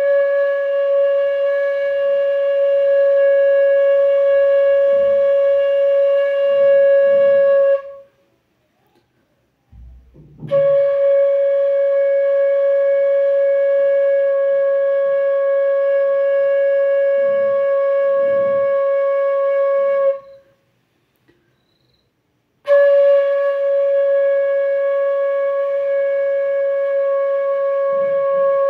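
Bamboo flute holding one steady note, the same pitch three times over, each held for several seconds with a short silent breath between: long-tone practice of a sargam note.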